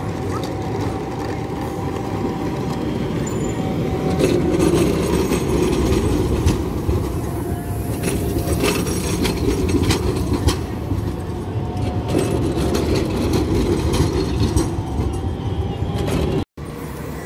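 Tram running on rails: a steady rumble with a faint whine and scattered clicks. The sound cuts out for an instant near the end.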